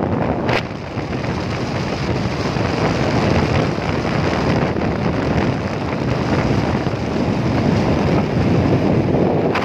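Steady, loud wind rushing over the microphone of a moving vehicle, with the vehicle's road noise underneath.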